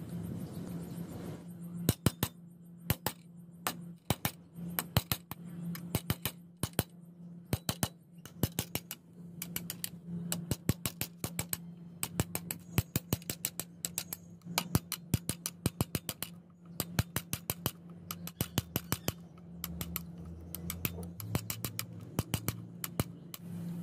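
A chisel ground from an old flat spade drill bit cutting a hinge recess into a wooden board: many sharp taps and clicks, often in quick runs of several a second, over a steady low hum.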